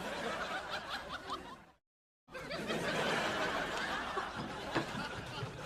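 Sitcom laugh track: a studio audience chuckling and laughing. The clip cuts off about two seconds in, and after half a second of silence a second, longer burst of audience laughter starts.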